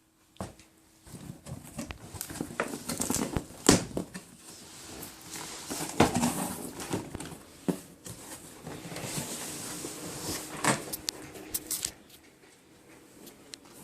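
Packaging being handled and opened by hand: irregular rustling, scraping and crackling with scattered knocks and clicks, dying down near the end.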